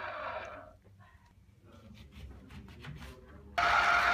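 Mondial E-20 electric citrus juicer's 85 W motor spinning down after a fruit half is lifted off the reamer, then a short lull with faint clicks of handling. About three and a half seconds in, the motor starts abruptly and runs steadily as the next citrus half is pressed onto the cone.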